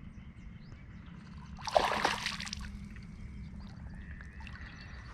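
A short splash of water about two seconds in, with some trickling.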